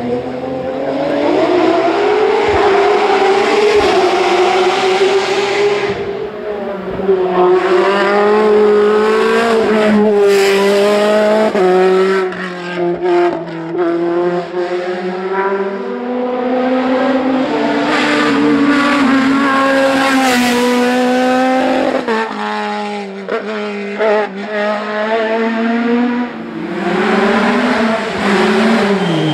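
Hill-climb race car engine revving hard. It climbs in pitch, breaks off briefly at each gear change and drops back, again and again, as the car accelerates and brakes through the course.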